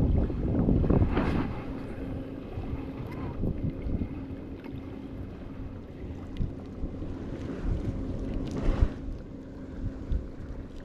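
Wind buffeting the microphone in gusts, strongest in the first second or so and again near the end, over a faint steady hum.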